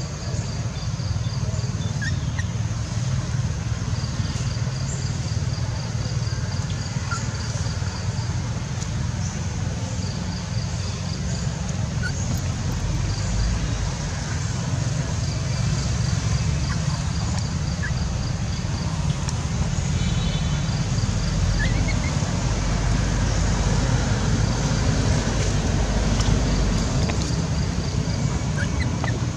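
Outdoor ambience: a steady low rumble, with a high, fast pulsing trill that comes and goes in runs of a few seconds and a few short chirps.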